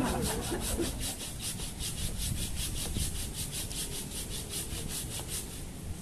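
Hand saw cutting through a tree trunk or branch with quick, even back-and-forth strokes.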